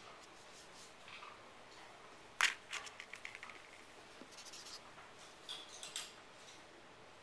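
Felt-tip marker drawing on paper: short scratchy strokes, some in a quick run, with one sharp click about two and a half seconds in, the loudest sound.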